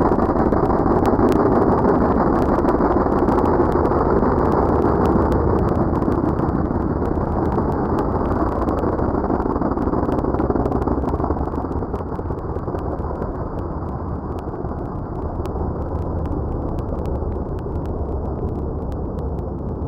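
Drag car engines at full throttle, a 1989 Fox-body Ford Mustang among them, launching and running down the drag strip. The sound slowly fades as the cars pull away.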